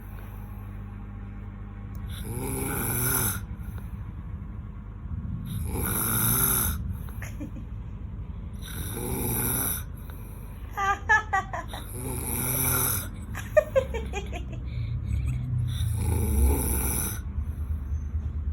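A man snoring heavily in his sleep, one loud rasping snore every three to four seconds, five in all. Two brief high-pitched squeaks cut in around the middle.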